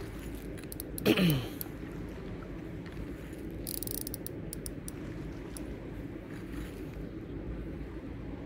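Fishing reel ticking and clicking irregularly while a big carp is played on the line. About a second in there is one short falling vocal sound.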